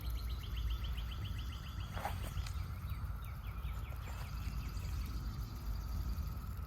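Chorus of Brood X periodical cicadas: a steady, unbroken drone. Twice, a rapid run of higher chirps rises over it, with a low rumble underneath.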